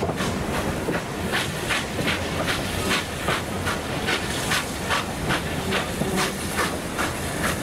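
Steam locomotive J549 working along, its exhaust beats coming evenly at about three a second with steam hiss, over a steady rumble of the train running on the rails.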